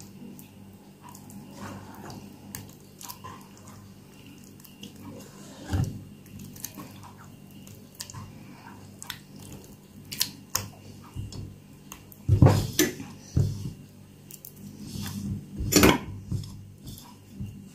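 A hand mixing thick jaggery batter in a stainless steel pot: wet squelching and slapping, with small clicks and knocks against the metal and a few louder thumps about two-thirds of the way through and again near the end.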